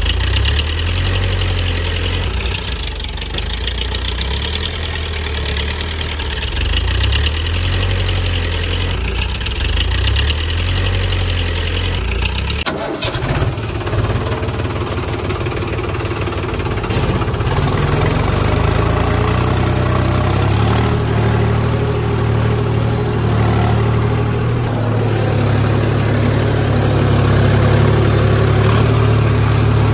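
Diesel tractor engine running steadily at low revs, changing abruptly about 13 seconds in to a different, slightly higher engine note that builds towards the end.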